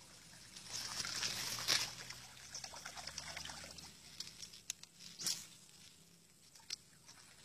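Water splashing and sloshing at the river surface, loudest about one to two seconds in and dying away by four seconds, then one short sharp splash a little after five seconds.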